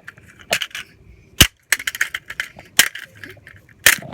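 A pickaxe striking a plastic McDonald's toy car: several sharp hits, roughly a second apart, with small clicks and clatter of plastic between them.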